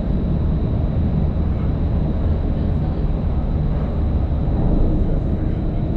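Steady low rumble of a commuter ferry under way, with wind buffeting the microphone.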